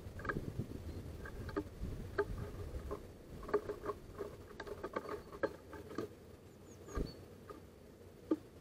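Great tits pecking and hammering at seeds on a wooden feeder tray: quick, irregular taps and clicks, with a louder knock about seven seconds in.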